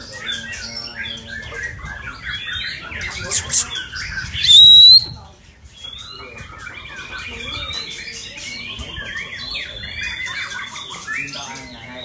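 Several caged songbirds singing and chattering together in a dense, overlapping mix of chirps and whistles. About four to five seconds in, one very loud call ends in a rising whistle.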